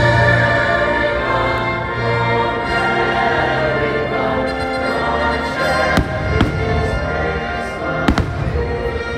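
Orchestral show music playing, with a few firework bangs in the second half, about six and eight seconds in.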